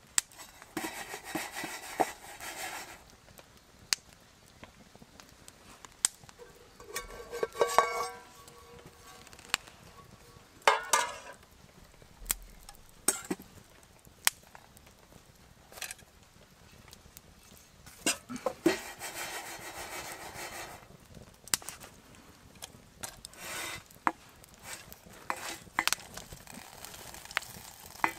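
Small dark seeds rattling and scraping in a metal pan as it is shaken over a campfire, in several bursts of one to three seconds, with sharp crackles from the fire in between.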